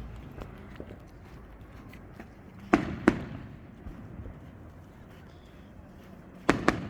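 Fireworks going off: two pairs of sharp bangs, the first pair near the middle and the second just before the end.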